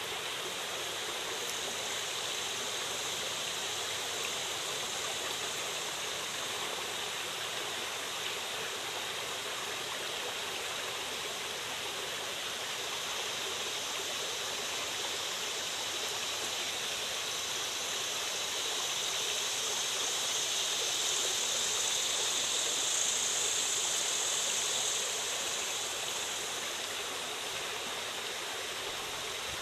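Creek water flowing and splashing over rocks, a steady rush that grows a little louder for several seconds past the middle.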